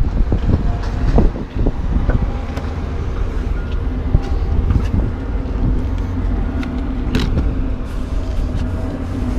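A motor vehicle's engine running steadily, a low rumble with a steady hum, with a few knocks in the first couple of seconds and a sharp click about seven seconds in.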